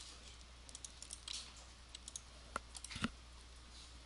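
Faint, irregular clicking of a computer mouse and keyboard, a dozen or so short clicks, the sharpest about three seconds in, over a low steady hum.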